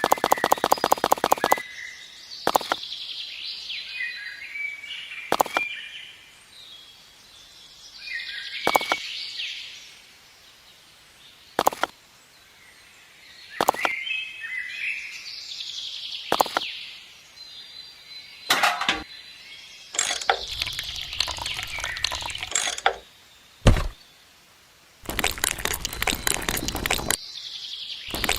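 Birds chirping, with a single sharp knock every few seconds. A fast, even clicking runs in the first second or two and starts up again a few seconds before the end.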